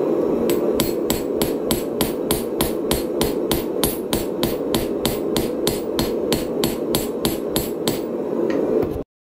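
A hand hammer forging a red-hot steel dagger blade held in tongs on a chain-wrapped steel post anvil: a steady run of even blows, about three a second, over a continuous low rushing noise.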